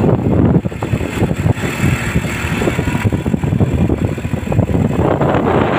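Wind buffeting the microphone on a moving vehicle, with the vehicle's engine running underneath as a steady rumble.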